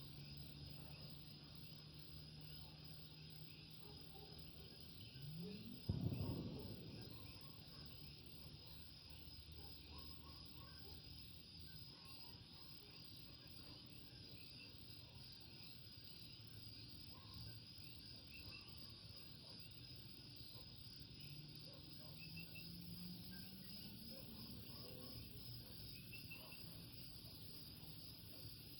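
Faint night chorus of Puerto Rican coquí frogs giving short scattered calls over a steady high insect trill. About six seconds in there is a short rising low tone, then a sudden thump, the loudest sound here.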